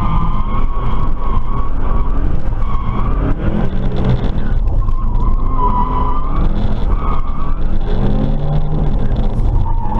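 Subaru WRX's turbocharged flat-four engine running hard, heard from inside the cabin, its revs rising and falling a few times while the tyres squeal on and off as the car slides sideways in a drift.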